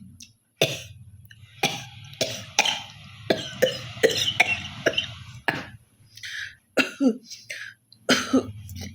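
A woman coughing over and over, a dozen or so short harsh coughs, with a longer rasping stretch of hawking to clear her throat about halfway through. She has a real chesty cough.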